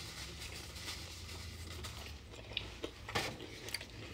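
Quiet kitchen room tone with a low steady hum and a few light clicks and knocks of things being handled, the clearest about three seconds in.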